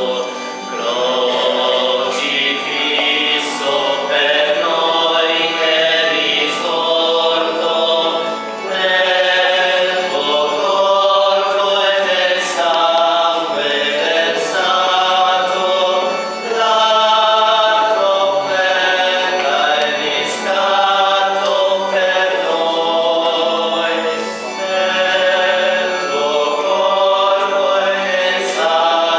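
A church choir singing a hymn: sustained sung phrases of several seconds each, with short breaks between them.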